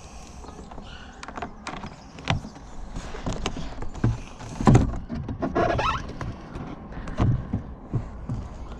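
Plastic car door trim panel being handled and pressed into place on the door: scattered clicks, knocks and scrapes, with a heavier thump just under five seconds in and a short creak soon after.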